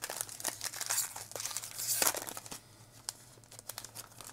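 Foil wrapper of a trading-card pack crinkling and tearing as it is opened, a dense crackling for the first two and a half seconds or so. After that it drops to softer, scattered clicks of the cards being handled.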